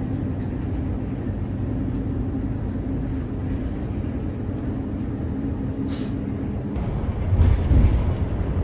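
City bus running, heard from inside the cabin: a steady low rumble of engine and road noise, with a brief hiss about six seconds in and the rumble swelling near the end.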